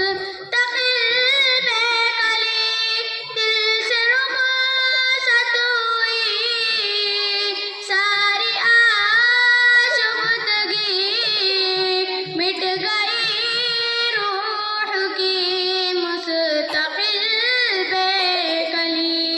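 A young girl singing an Urdu naat solo, one voice with no instruments, drawing out long held notes that waver and turn up and down.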